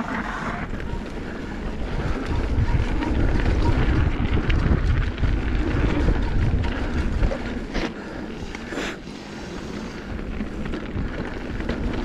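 Wind rushing over the microphone with the steady rolling noise of a mountain bike's tyres on a dirt trail, and a few short clicks and rattles.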